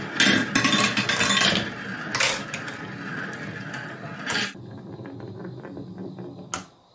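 Glass marbles rolling and clattering down grooved wooden marble-run tracks, spilling from a plastic toy cement mixer's drum, with sharp clicks as they strike the wood and each other. The clatter is dense for the first couple of seconds, then thins to a rolling rumble with scattered ticks and a sharp click near the end.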